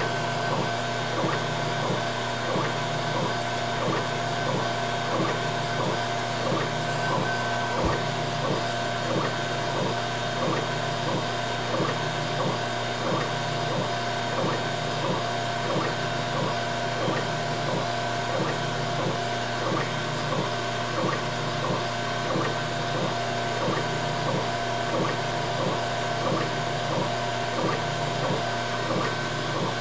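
Laser engraver running, its head moving back and forth across the bed in even, repeating strokes over a steady machine hum, as it engraves a picture into plywood.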